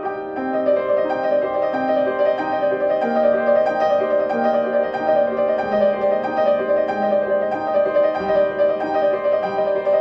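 Instrumental music: a piano plays a quick, steadily repeating high figure over slower lower notes that change every second or so.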